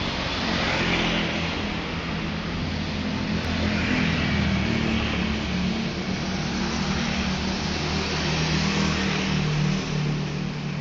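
Bus engine running with road noise that swells and fades a few times, as traffic or the bus moves past.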